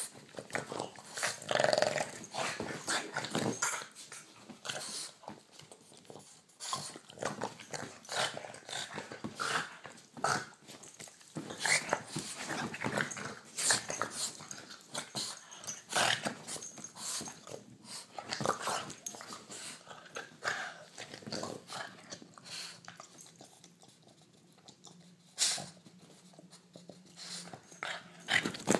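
Boston terrier growling in rough play while biting at a hand, with many short, irregular snaps and scuffles. It goes quieter for a couple of seconds toward the end.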